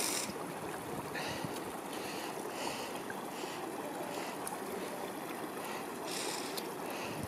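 Trekkers' footsteps crunching on a dirt and gravel trail, a step roughly every half to three-quarters of a second, over a steady rushing background.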